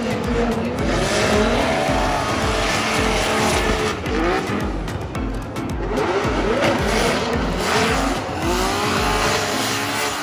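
Two drift cars sliding in tandem: engines revving up and down in quick swings over continuous tyre squeal. A pulsing music beat runs underneath.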